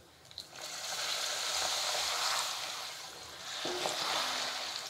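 Hot oil sizzling as three or four pappadams deep-fry in a cast-iron kadai. The hiss starts suddenly just after the start, eases slightly past the middle, then rises again.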